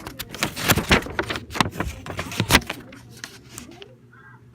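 Cardboard box and packaging being handled: a quick, irregular run of rustles, scrapes and knocks that stops a little under four seconds in.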